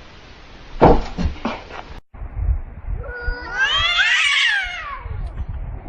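A few sharp knocks, then a domestic cat's long, drawn-out yowling meow that rises and then falls in pitch.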